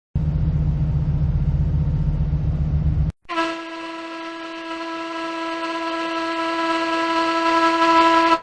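A boat engine chugging low for about three seconds, then a ship's horn sounding one long, steady blast that grows louder.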